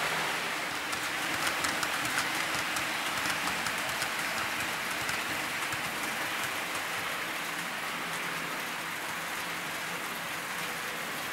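Model trains rolling on the layout's track: a steady rushing hiss of metal wheels on rails with motor hum, and light ticking of wheels over rail joints in the first few seconds.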